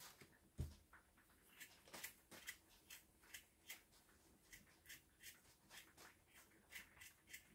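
Faint, quick scrapes of a knife blade scraping the thin skin off a young potato, in short irregular strokes about one or two a second, with a soft low thump about half a second in.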